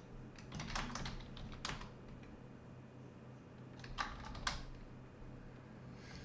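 Computer keyboard keystrokes: a few scattered key presses early on, then two louder, sharper key clicks about four seconds in.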